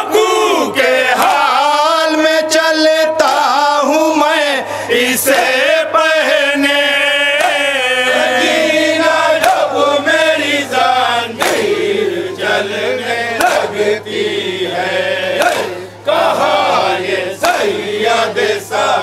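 Men chanting a Muharram noha (mourning lament) over a sound system, with the mourners' chest-beating (matam) slaps keeping time. The singing is strongest in the first half; in the second half it thins and the sharp slaps stand out.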